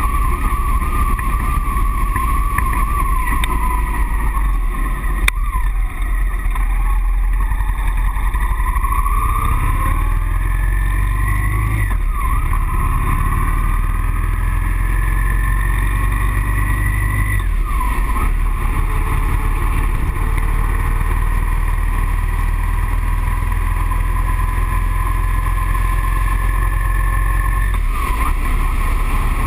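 Motorcycle engine running under way. It eases off around five seconds in, then pulls up through the gears, its pitch climbing and dropping sharply at upshifts about twelve and eighteen seconds in, before settling into a steady cruise.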